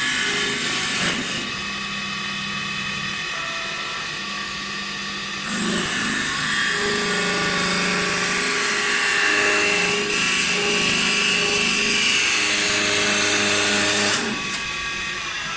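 High-speed CNC wood turning lathe running: a steady motor whine with several steady tones, turning wood. It grows louder and hissier from about five seconds in and drops back near the end.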